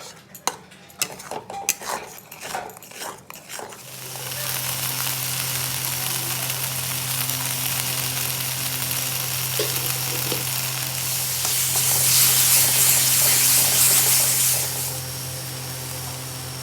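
A spatula scraping and clicking against a cooking pan for the first few seconds, then food frying with a steady sizzle, loudest from about eleven to fifteen seconds in, over a steady low hum.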